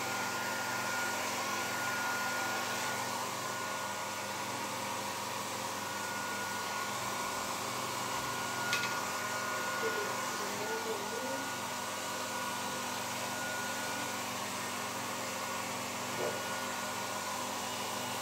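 Handheld electric hair dryer running steadily, blowing through a plastic kitchen colander used as a diffuser: an even rush of air with a faint steady high whine.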